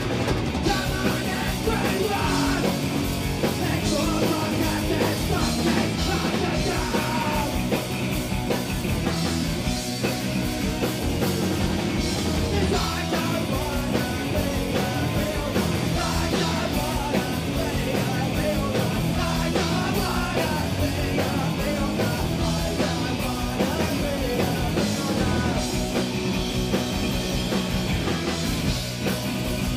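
Punk rock band playing live at full volume: electric guitar, bass guitar and drum kit, with a shouted lead vocal over them.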